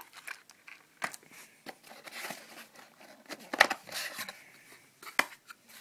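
Cardboard and plastic packaging rustling and crinkling as a phone box is unpacked by hand, with scattered light clicks and a sharper tap about three and a half seconds in.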